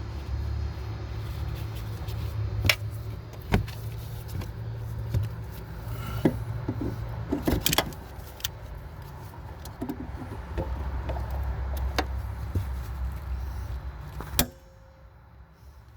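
Sharp metal clicks and clinks of needle-nose pliers gripping and turning a rear shock absorber's upper shaft nut, one pair holding the shaft and one on the nut, over a low steady rumble that drops away near the end.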